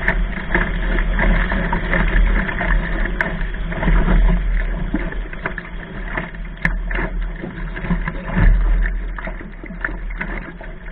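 Water rushing and splashing along a sailing dinghy's hull as it sails fast and heeled, with wind buffeting a deck-mounted camera's microphone as a steady low rumble. A couple of short clicks stand out briefly.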